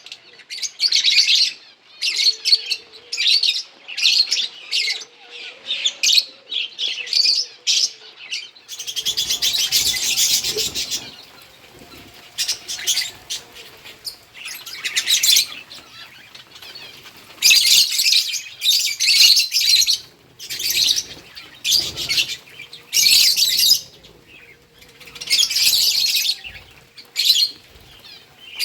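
Pet lovebirds chirping in repeated bouts of rapid, high-pitched chatter, with short quieter pauses between bouts.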